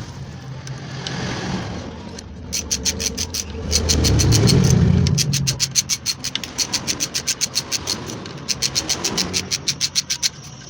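Ratchet wrench clicking in quick, even runs as the motorcycle's clutch-spring bolts are loosened, with a louder low handling rumble about four seconds in.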